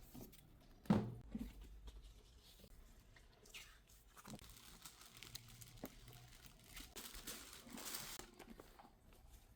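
Packaging being handled as a handbag is unboxed: a thud about a second in, then paper crinkling and rustling, louder for a moment near the end.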